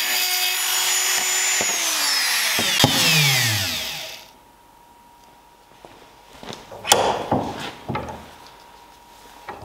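Handheld rotary tool with a small grinding bit running at high speed in the slot of a steel compass leg, then switched off, its whine falling away over about two seconds as the motor spins down. After a quiet stretch come a few short knocks and rubs.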